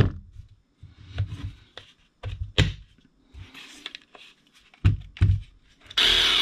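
Clunks and rubs of a cordless reciprocating saw's plastic housing being handled and turned over, then near the end the Tacklife 20V reciprocating saw's motor starts suddenly and runs steadily with a high whir.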